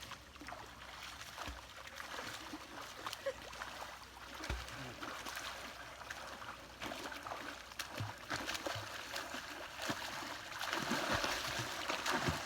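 Lake water splashing and trickling as someone swims, with irregular small splashes. It gets louder near the end.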